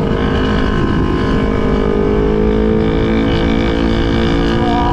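250 cc parallel-twin sport motorcycle engine running at a steady pitch while riding, with the rumble of the ride underneath.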